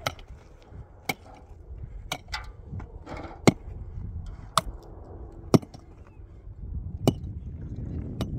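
A metal digging tool striking hard, stony earth with sharp blows about once a second, as a trench shelter is dug out.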